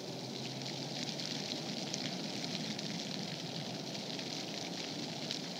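Steady outdoor background hiss with faint scattered crackles.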